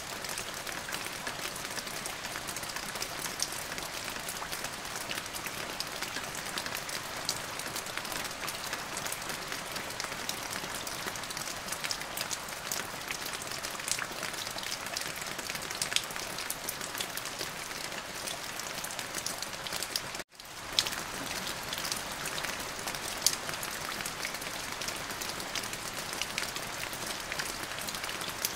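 Steady rain, an even hiss spattered with many sharp drop ticks. About twenty seconds in it cuts out for a split second and fades back in.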